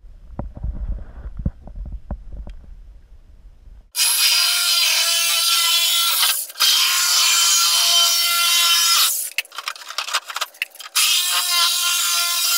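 First a muffled low underwater rumble with a few faint clicks from a spinning outboard propeller. About four seconds in, it gives way to a corded electric saw cutting through the side of a blue plastic 55-gallon drum with a loud buzz. The saw stops and starts a few times about nine seconds in, then runs on.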